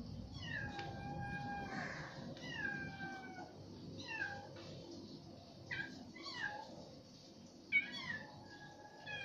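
Young kittens mewing: a string of short, high-pitched mews about once a second, some rising and then falling in pitch.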